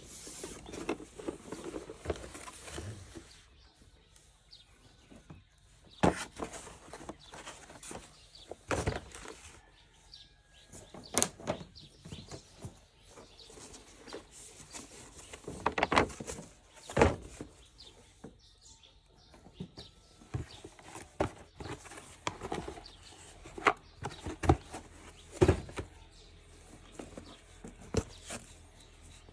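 Plastic toys and packaging being handled. There is rustling for the first few seconds, then irregular sharp clicks and knocks, several a few seconds apart.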